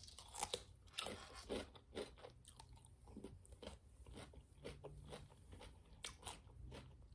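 Close-miked biting and chewing of a toasted grilled cheese turkey sandwich on a croissant: a run of quiet, irregular crisp crunches, several a second.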